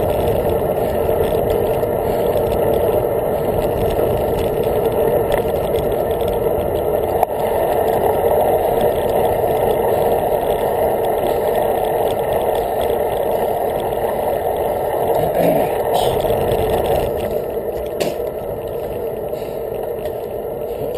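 Steady rushing noise of a bicycle being ridden along a path, heard through a camera mounted on the bike: wind and tyre rumble. A couple of short clicks come near the end, and the noise eases a little over the last few seconds.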